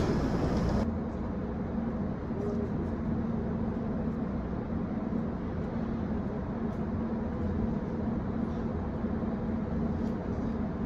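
Steady hum of a JR West 681-series limited express electric train standing at the platform, with a low tone held steady throughout.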